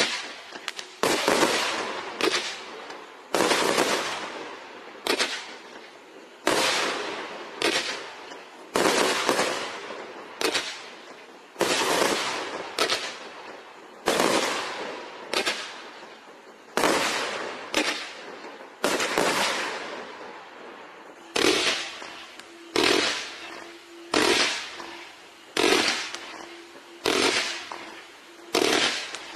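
Firework cake firing shot after shot, roughly one every second and a quarter. Each shot is a sudden bang that trails off in a hiss as its comet tail rises.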